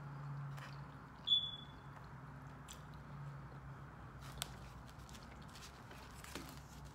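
Faint chewing and small mouth clicks of a person eating fried fish, over a steady low hum. About a second in, a single short high ping rings and fades quickly.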